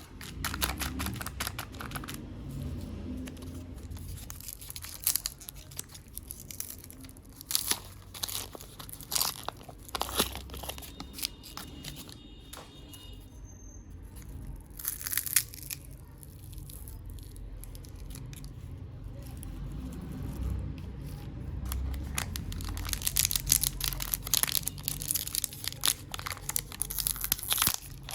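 Chocolate wrapper being torn open and crinkled by hand, in irregular bursts of crackling that come thickest near the end.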